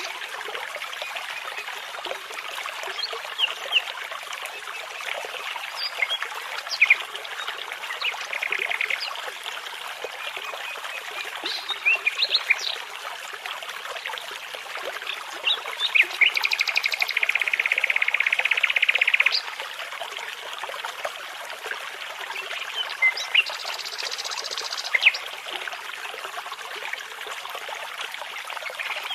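A brook babbling steadily, with songbirds, nightingales among them, singing over it in short scattered phrases. Just past the middle comes a loud, rapid trill of repeated notes lasting about three seconds, and a higher, buzzy phrase follows later.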